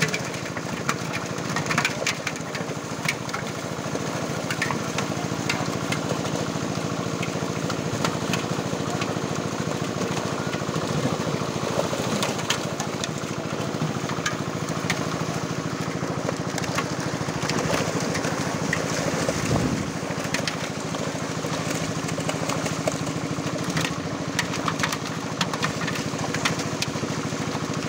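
A small engine running steadily at an unchanging pitch, with scattered splashing from fish thrashing in a net in shallow water.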